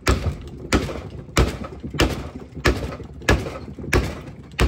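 Hammer blows on the head of a claw hammer whose claw is hooked behind the old pinion oil seal of a rear-axle differential, driving the seal out. Sharp metal-on-metal strikes at an even pace, about one every two-thirds of a second, eight in all.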